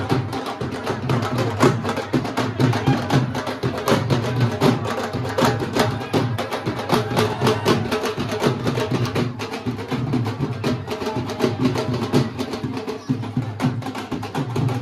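Several dhols, double-headed barrel drums, beaten with sticks in a fast, unbroken rhythm.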